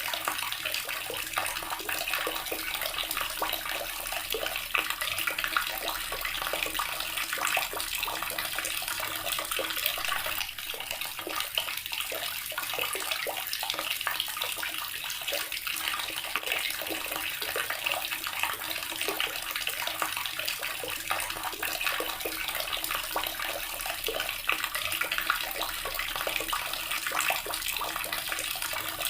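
Water running steadily from a tap and splashing into the basin below, a continuous bright, spattering rush.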